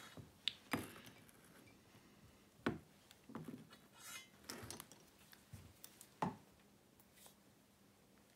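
Scattered light knocks, clinks and rustles of a plastic water pipe and its fittings being handled on a workbench, with the pipe end standing in a cup of hot water to soften it. The sharpest knocks come a little under three seconds in and again after six seconds.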